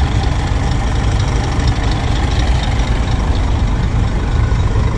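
Scania G 450 truck's 13-litre inline-six diesel idling steadily, a low rumble.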